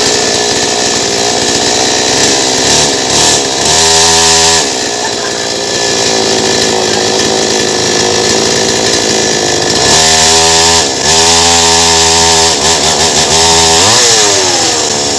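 Bicycle-mounted two-stroke chainsaw engine running loudly. It is revved briefly about four seconds in and again for several seconds from about ten seconds in, and the revs fall away near the end.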